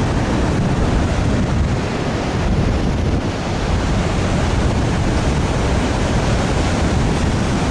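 Ocean surf washing in steadily, with wind blowing across the microphone and rumbling it.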